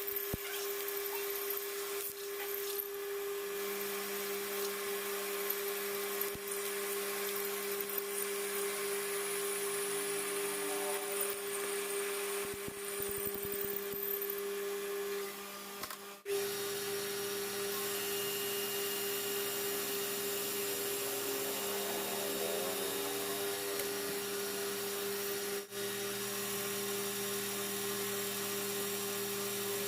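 Metal lathe running with a steady hum, its sound breaking off briefly about 16 seconds in.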